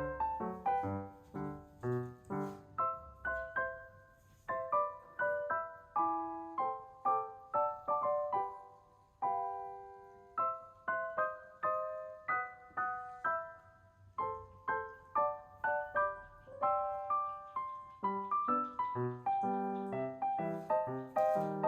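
Background piano music: a gentle melody of separate plucked-sounding notes with soft chords beneath.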